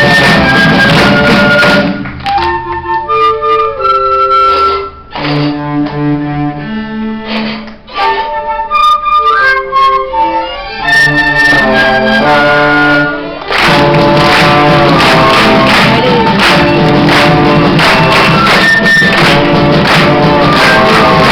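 A school orchestra plays a huayno-style tune. The full ensemble with percussion gives way about two seconds in to a quieter passage of bowed strings playing the melody in clear, separate notes. The full ensemble comes back in about thirteen seconds in.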